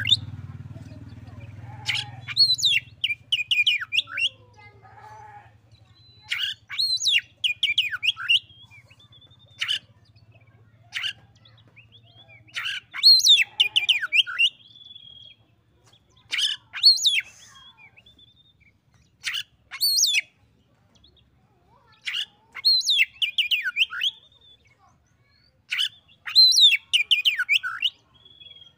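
Oriental magpie-robin (kacer) singing: short, loud phrases of quick whistles and chirps, one roughly every three to four seconds with pauses between.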